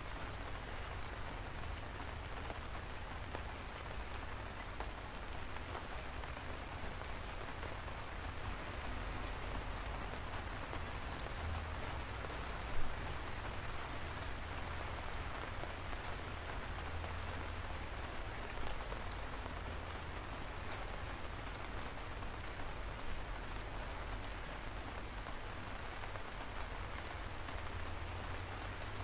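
Steady rain: a constant hiss with a low rumble underneath and scattered sharp drop ticks. One louder tap comes about 13 seconds in, and fainter ones follow later.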